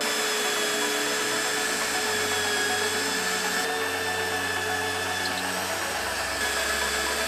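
Drill press running steadily, its twist bit boring a hole through a steel bracket plate.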